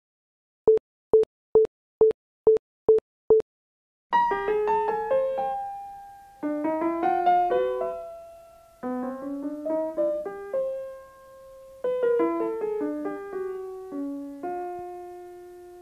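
Seven short, identical electronic beeps about half a second apart, followed from about four seconds in by a piano melody of quick rising broken chords whose notes ring and fade.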